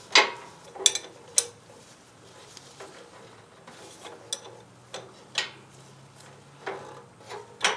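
Scattered metallic clicks and clinks of hand tools and fittings being worked while an oil drain is put back together on a zero-turn mower, about a dozen separate knocks with pauses between them.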